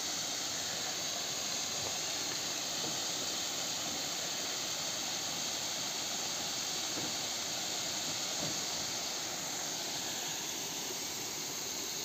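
Steady rush of falling water from a waterfall.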